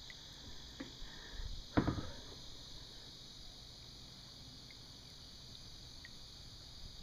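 Kayak paddling: one short dull knock of the paddle about two seconds in, with a few faint small clicks and drips, over a steady high hiss.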